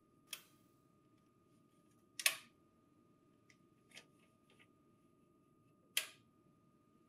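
Plastic paper guides in a Lexmark B2236 paper tray being squeezed and slid into position, giving four sharp clicks about two seconds apart, the loudest a little over two seconds in.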